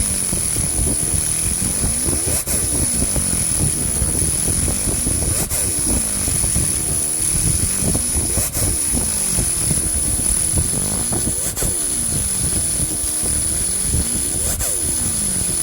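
300 W pulsed laser cleaner firing on a rusty bell, a steady high whine over a rushing low hum. A sweep runs down and back up about every three seconds as the beam's box-shaped scan pattern closes in and opens back out.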